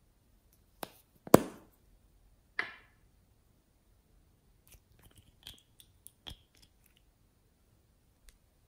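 A small plastic owl-shaped pot snapping open with one loud sharp click, followed by a short crackly scrape. Then a plastic spatula scrapes and taps in the pot's soft pink contents with small clicks, and one faint tick near the end.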